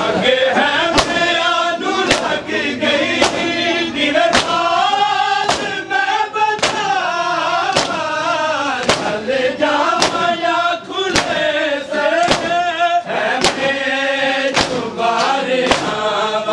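A group of men chanting a mourning noha together, with a sharp slap of hands beating chests (matam) about once a second, in time with the chant.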